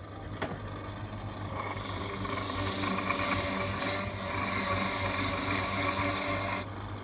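A motor-driven machine running with a steady hum, with a louder rasping, grinding noise from about a second and a half in until shortly before the end.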